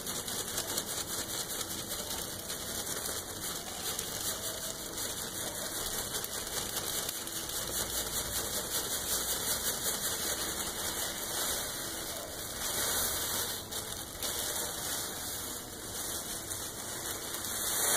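Wort trickling and dripping from a lifted grain bag into a stainless brew kettle, with the wet bag crinkling and rustling as it is squeezed. A steady patter of many fine drips and clicks.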